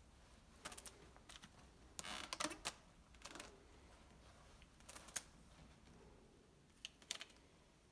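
Faint, scattered clicks and rustles as rubber bands are pulled off a VS2 blind and its plastic parts are handled.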